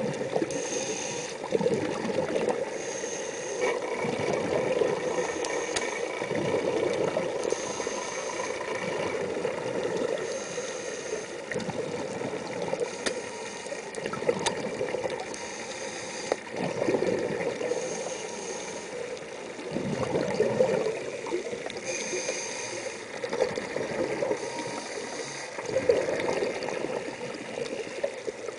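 Scuba diver's breathing through a regulator, heard through an underwater camera housing: a short hiss with each inhale every two to three seconds, and gurgling rushes of exhaled bubbles.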